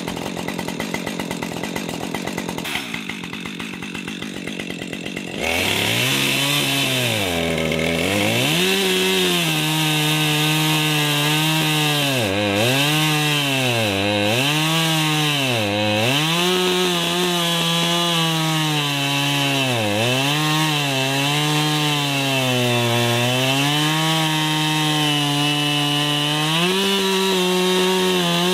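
Gas chainsaw cutting through a log. After about five seconds at a lower level, it opens up to full throttle. Its engine pitch drops and recovers over and over as the chain bites and bogs in the wood.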